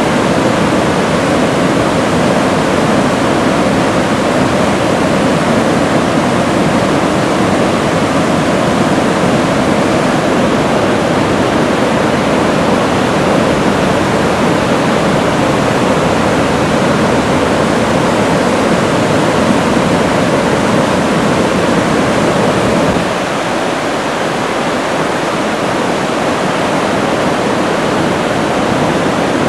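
Loud, steady rush and roar of a big whitewater rapid pouring over ledges. About three-quarters of the way through it drops slightly in level and loses some of its deep rumble.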